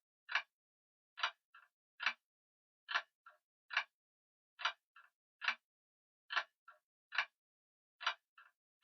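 Grandfather clock ticking steadily, a little faster than one beat a second. Each sharp tick is followed closely by a fainter, lower click.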